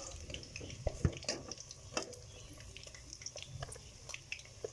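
Hot frying oil crackling with scattered small pops and clicks over a low steady rumble, with a few light knocks as pieces of fried chicken are set onto a plate with a metal spoon.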